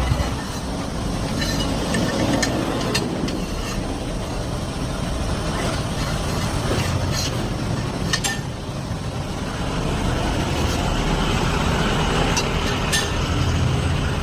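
Hydraulic ironworker machine running steadily, with a few sharp metal clicks as the steel tube is worked.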